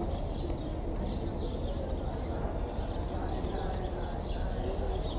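Open-air ambience: small birds chirping over a murmur of distant voices, with a steady low rumble underneath.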